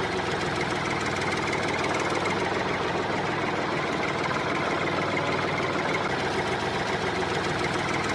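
Tractor engine running steadily at idle with a fast, even knocking chug.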